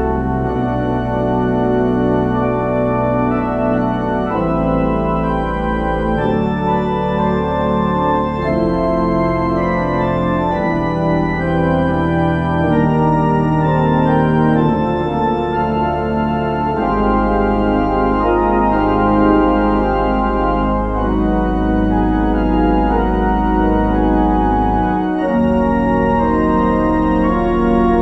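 Church organ playing: sustained chords over low pedal bass notes that are held for several seconds at a time and change every few seconds.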